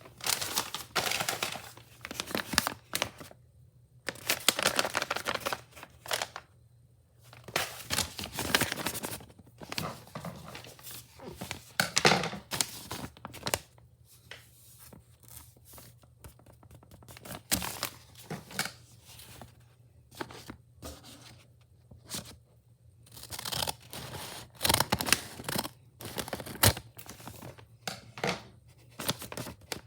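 Wrapping paper being torn off and crumpled by hand in irregular bursts of rustling and ripping, with short quieter pauses in between.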